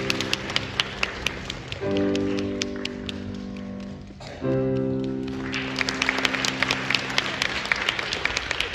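Three sustained keyboard chords, the stand-bow-rise cue for a group bow, the longest lasting about two seconds. An audience claps throughout, growing fuller after the last chord.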